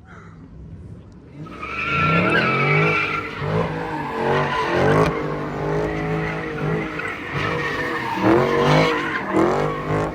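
Car engine revving hard with tyre squeal as the car slides, with the revs rising and falling. It starts quietly and comes in loud about a second and a half in.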